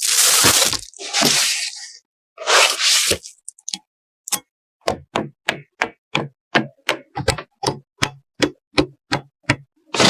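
Three short bursts of hissing noise, then from about four seconds in a steady run of sharp ticks, about three a second, like a clock ticking.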